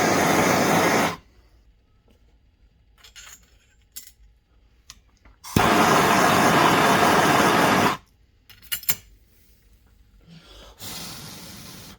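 A heating tool blowing with a loud, steady rush, shut off about a second in and run again for about two seconds in the middle, heating a steering stem bearing to fit it onto the stem. In the gaps, light metal clicks and taps of parts being handled.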